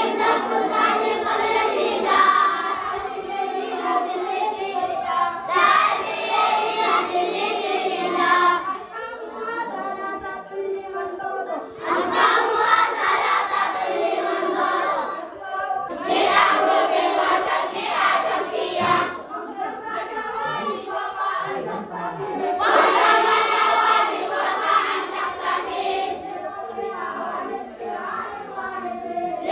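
Children singing together as a group, loud full passages alternating with thinner, quieter stretches.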